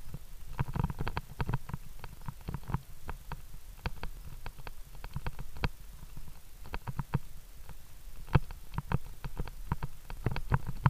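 Rapid, irregular clicks and soft knocks over a low rumble: handling and mount noise from a body-worn action camera being jostled as its wearer climbs.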